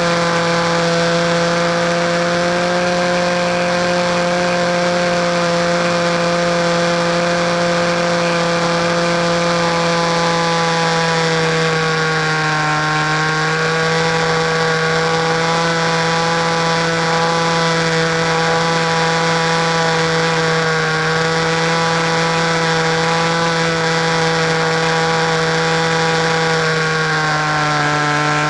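RC model airplane engine running steadily at high throttle, a buzzing note whose pitch dips slightly twice, about halfway through and near the end.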